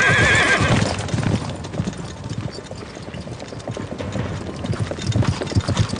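Several horses galloping on a hard dirt track, a quick run of hoofbeats that dips in the middle and grows louder again near the end. A horse's whinny trails off in the first second.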